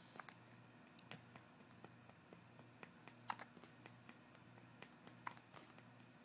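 Baby hiccupping softly: two short hiccups about two seconds apart, with fainter clicks in between.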